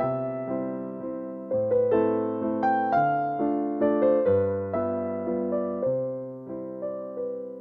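Slow, gentle solo piano music. Notes are struck and left to ring out over a low bass note that changes every second or two.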